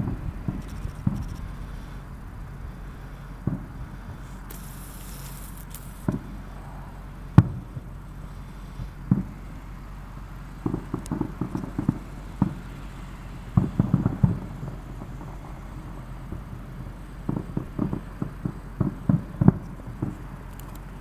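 Aerial fireworks going off: single low bangs every second or two, the loudest about seven seconds in, then rapid runs of pops around the middle and again near the end.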